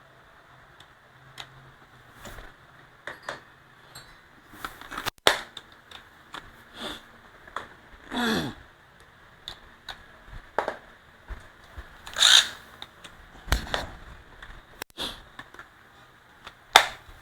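Irregular clicks, taps and short scrapes of a cordless drill-driver being handled, its setting collars being turned; the motor is not running.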